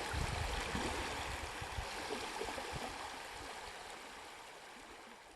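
Running water with a steady rushing sound, fading out gradually over the second half.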